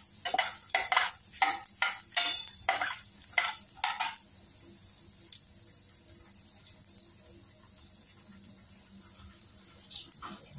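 Steel spatula stirring and scraping roasting dal, coriander seeds, chillies and coconut pieces around a stainless steel pan, about two strokes a second, stopping about four seconds in. After that only a faint sizzle of the masala roasting on a low flame, with a couple more strokes near the end.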